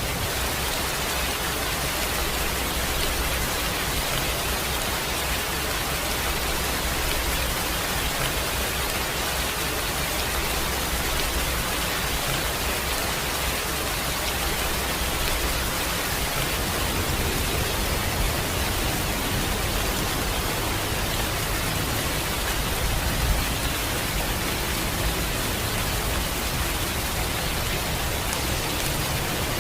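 Steady rain, a dense even hiss, with a low rumble underneath that grows a little stronger about halfway through.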